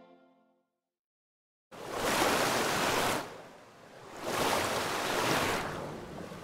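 Closing music fades out, and after a short silence ocean surf comes in suddenly: two waves wash in and draw back, then the sound cuts off abruptly.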